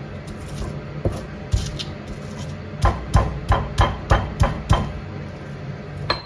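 Pestle pounding garlic in a mortar: a couple of separate knocks, then a quick run of about eight strikes at roughly four a second.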